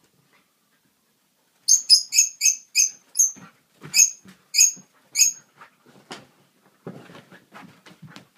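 A quick run of about ten short, very high-pitched squeaks from a husky and cat play-fighting, then quieter scuffling and soft knocks as they tussle.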